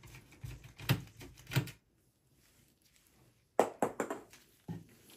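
Screwdriver backing a small screw out of a steel PC chassis: a few light clicks and ticks, then a short gap. About three and a half seconds in, a quick cluster of louder metallic clicks follows as the screw and chassis are handled.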